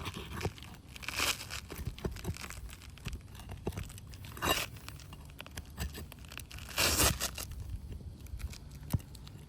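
Asphalt roof shingles being worked loose by hand: scraping and tearing noises about a second in, midway and near the end, with scattered clicks and knocks.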